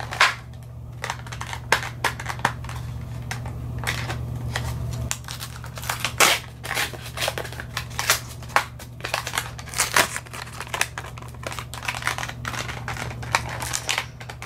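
Plastic and cardboard toy packaging being torn and crinkled open by hand: a string of irregular crackles, rustles and sharp snaps.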